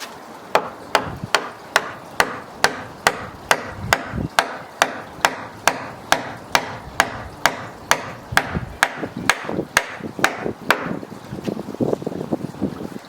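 Hammer striking steadily, about two and a half blows a second, each blow sharp and ringing, plausibly driving a long bolt through the timber of a pergola brace; the blows stop about eleven seconds in.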